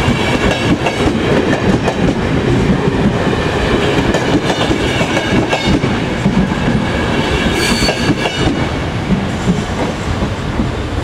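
Passenger coaches of a departing train rolling past at low speed, their wheels clattering over rail joints and points, with a brief high wheel squeal about three-quarters of the way through. The noise eases slightly near the end as the last coach passes.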